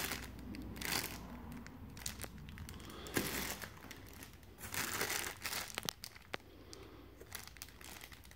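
Clear plastic packaging bags crinkling as the bagged steel mounting brackets are handled, with a few light clicks.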